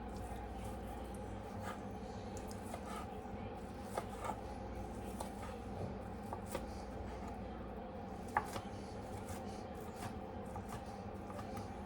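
A knife chopping baked chicken breast on a cutting board: scattered light taps, with two sharper knocks about four and eight seconds in, over a steady low hum.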